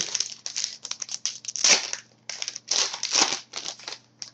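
Foil wrapper of a trading-card pack and the cards inside being handled and opened: irregular crinkling and rustling, louder a little under two seconds in and again around three seconds.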